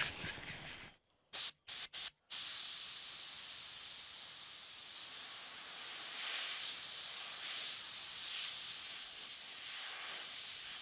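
Gravity-feed airbrush spraying white paint: three short puffs of air about a second and a half in, then a steady hiss of continuous spraying.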